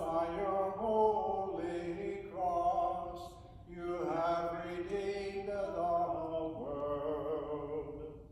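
Unaccompanied singing of a slow, chant-like hymn verse by a man's voice, in phrases of held notes with a short break about three and a half seconds in.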